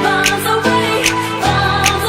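Background pop song: sustained chords with a steady beat of light percussion, changing chord about every second.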